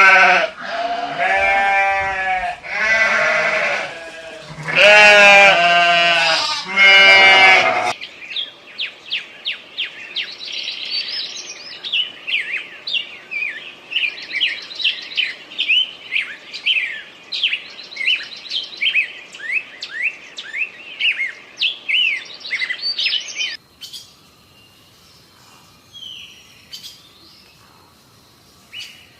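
Lemur calling: four loud, wavering cries with many overtones. After about eight seconds these give way to a kingfisher's long run of short, quick, high chirps, which stops abruptly a little over twenty seconds in.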